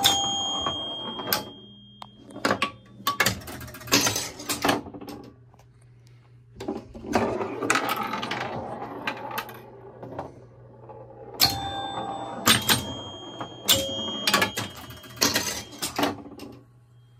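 A 1970 Gottlieb Batter Up electromechanical pinball machine in play: bursts of mechanical clacking from its solenoids and score reels, several with ringing scoring chimes, over a steady low hum.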